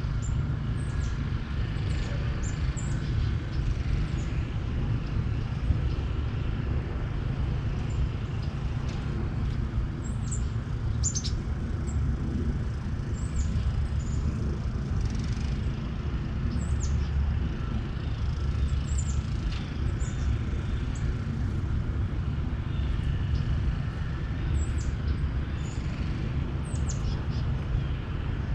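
Birds chirping in many short, high notes scattered throughout, over a steady low rumble.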